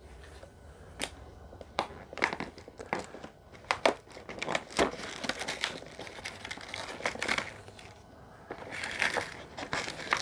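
Cardboard and packaging crinkling, snapping and tearing in short irregular bursts as an advent calendar compartment is opened and a small toy taken out. The handling gets busier near the end.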